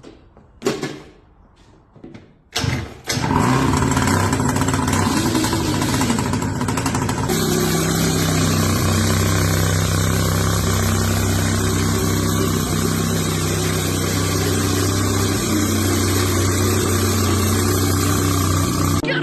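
Small engine of a homemade mini bike with a large can-style exhaust, catching about two and a half seconds in after a few short sounds, then running steadily.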